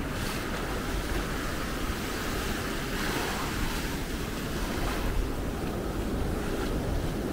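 Atlantic Ocean surf washing steadily onto the beach, with wind buffeting the microphone as a low rumble.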